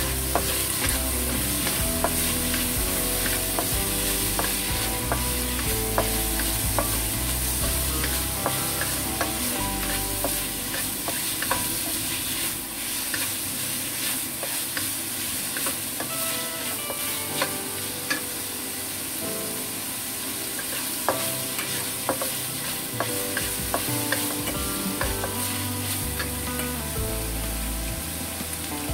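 Minced chicken, shallots and garlic sizzling in hot oil in a stainless steel wok while being stir-fried until the chicken is cooked, the spatula scraping and clicking against the pan over and over.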